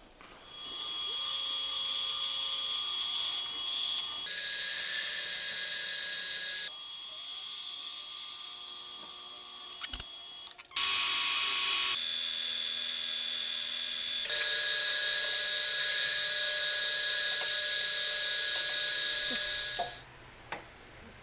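Metal lathe cutting a brass workpiece: a steady, high-pitched machining noise with several tones in it, changing abruptly several times between short passes and stopping near the end.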